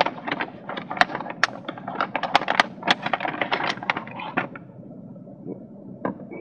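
Packaging being handled and opened by hand: a rapid run of crinkling, crackling clicks that dies away about four and a half seconds in, then starts again near the end.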